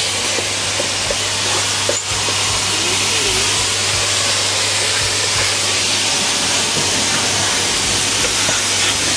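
Vacuum cleaner running steadily with a loud hiss of rushing air over a low motor hum, sucking dust out of a car's heater. The sound briefly dips about two seconds in.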